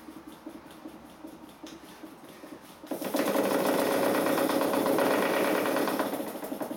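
Stuart S-50 steam mill engine running with a soft, fast ticking. About three seconds in, as the boiler's steam valve is turned, it breaks suddenly into a much louder rapid chuffing clatter with steam hiss, which eases off near the end.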